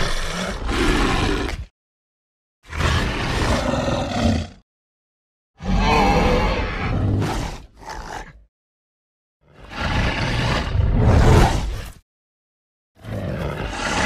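Carnotaurus creature sound effects from an animated film: five separate growling roars of about two seconds each, isolated with no background and cut off into dead silence between them. One roar is followed by a short extra growl.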